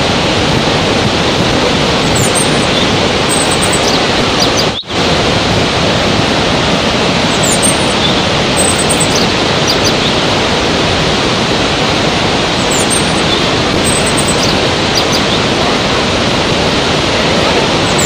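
Waterfall: a loud, steady rush of falling water, with faint high bird chirps now and then. The sound cuts out for an instant about five seconds in.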